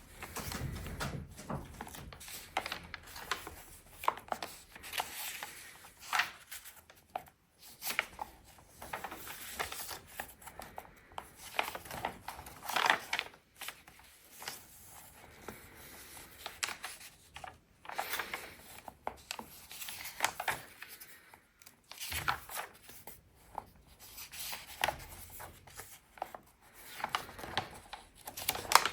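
Paper pages of a sketchbook being turned and handled: irregular rustling swishes and soft paper slides, with small taps and clicks in between.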